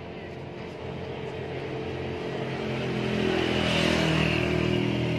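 An engine running steadily, growing louder to a peak about four seconds in, then easing off slightly.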